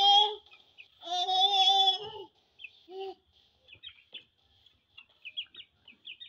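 A young child's voice holding long, steady sung notes: one ends just after the start, and another lasts about a second. Then come a few seconds of short, high chicken chirps and clucks.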